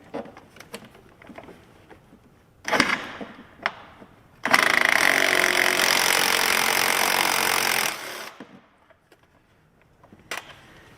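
A handheld power tool runs steadily for about three and a half seconds, with a short burst of clattering noise a couple of seconds before it and light clicks of tool handling around it.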